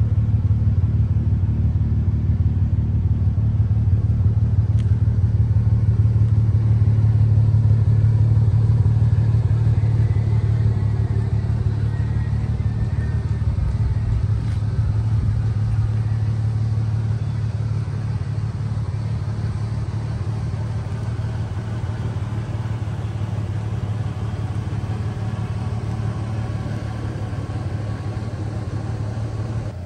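Toyota 1JZ-GTE twin-turbo inline-six engine idling steadily, a low even hum through the exhaust with no revving; it is louder at first and eases off somewhat over the second half.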